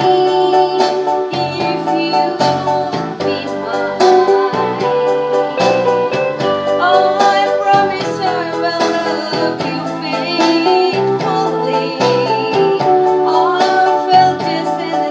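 A woman singing a song into a microphone over instrumental accompaniment with a steady beat.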